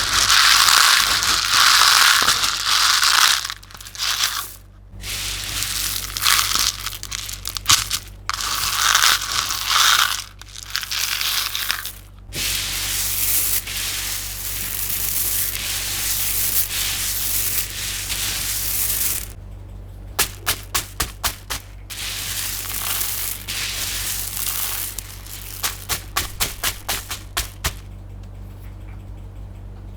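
Slime and candy being crushed and mixed, making crunchy, crackling sounds in long noisy stretches that stop and start. Twice, about two-thirds of the way in and near the end, come runs of quick sharp clicks, all over a steady low hum.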